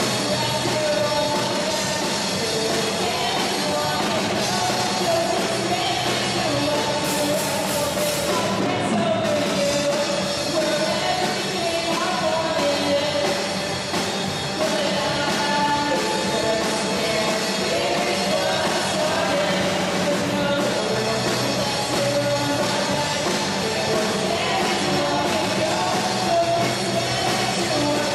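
Live rock band playing a song: a female lead vocal over electric guitars, bass and a drum kit.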